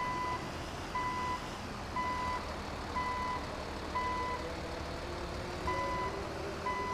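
Vehicle reversing alarm beeping steadily about once a second, each beep short and single-pitched, with one beep skipped about five seconds in, over a low engine rumble.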